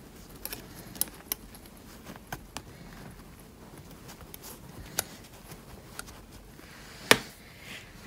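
Light, scattered metallic clicks and taps as fabric is pushed into the channel of a gold metal kiss-clasp purse frame with a small tool, with a sharper click near the end.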